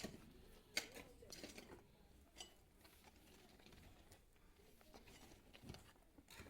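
Near silence, with a few faint scattered clicks and knocks, the sharpest about a second in.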